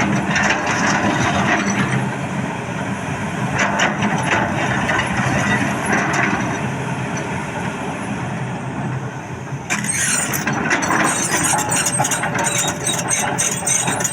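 Excavator's diesel engine running steadily under work. From about ten seconds in, dense metallic clanking and rattling is added over the engine.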